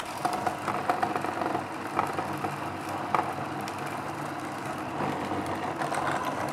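Food processor switched on and running, its blade grinding a sticky mixture of walnuts, sunflower seeds, coconut, cacao and dates: a steady motor sound with a rattly, grainy texture and a few small clicks. This is the last short blend to take the mix finer.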